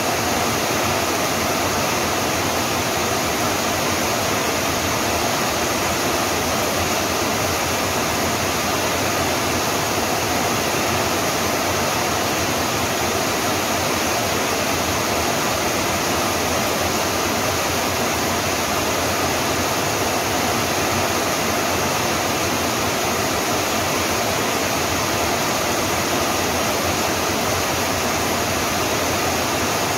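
Rain falling steadily, a dense, even hiss of drops that does not change.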